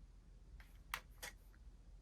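Slime being handled, giving a few soft clicks and pops, the loudest about a second in and another just after.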